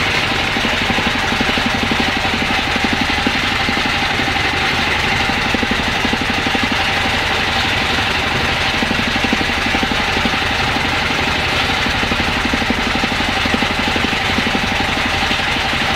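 Fishing boat's engine running steadily at trolling speed with a fast, even pulse, over a hiss of water and wind.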